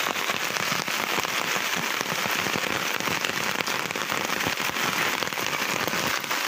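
Heavy rain falling steadily: a dense, even hiss made of countless small drop hits.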